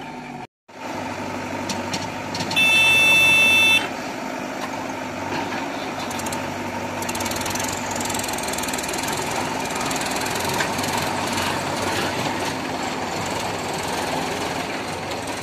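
Diesel engines of a Mahindra tractor and a JCB 3DX backhoe loader running steadily. About two and a half seconds in, a loud horn sounds once for about a second.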